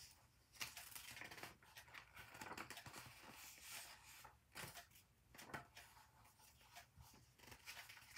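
Faint rustling and crinkling of paper as the pages of a paperback picture book are handled and turned, with a few small clicks.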